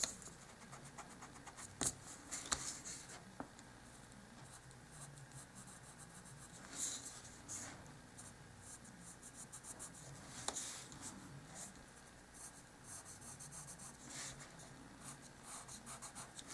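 Pencil lead scratching on white cardstock: a run of short drawing strokes, pressed fairly dark, with a few louder strokes among them.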